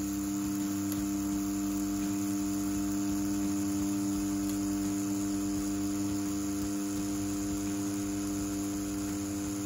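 CNC-T4 rotary tattoo pen with a 5-round liner needle running steadily while pulling a line: a constant, even motor hum.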